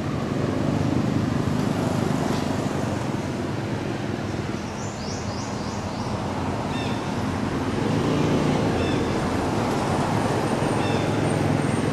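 Steady low outdoor background rumble. High bird chirps sound over it: a quick run of four or five about five seconds in, then single chirps every couple of seconds.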